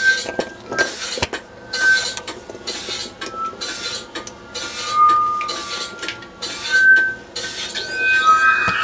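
Plastic grocery bags crinkling in repeated short bursts as produce is handled, with brief thin high-pitched tones coming and going between them.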